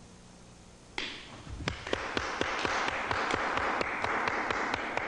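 Audience applauding. The clapping breaks out suddenly about a second in and quickly builds to a steady applause, with single claps standing out.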